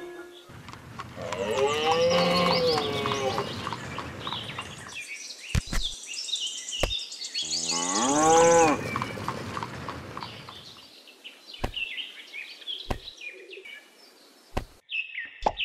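A cow mooing twice in two long calls, the first about four seconds long and the second shorter, followed by a few sharp clicks of small stones being set down.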